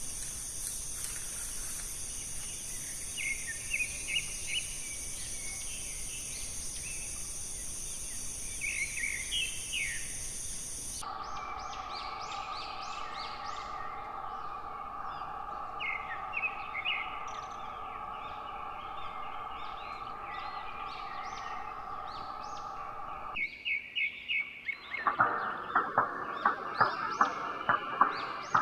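Outdoor ambience of birds chirping over a steady high-pitched drone that drops lower partway through. A quick run of repeated sharp calls comes in near the end.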